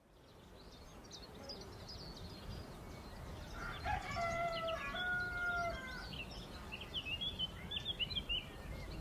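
A rooster crowing once, a drawn-out call about four seconds in, over the high chirping of small birds. The sound fades in from silence.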